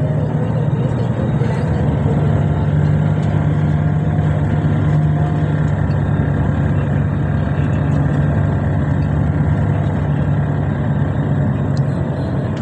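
Steady road and engine noise heard from inside a moving vehicle: a constant low hum under an even rush of tyre and wind noise.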